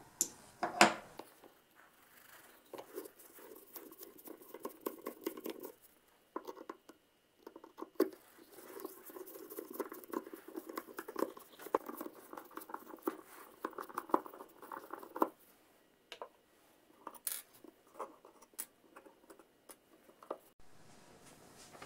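Small screws being backed out of the head of a 1920 Millers Falls No. 772 bit brace with a screwdriver: a long, dense scratchy rattle of clicks as the screws turn, in two stretches. A loud knock comes about a second in, and a few sharp separate clicks come near the end.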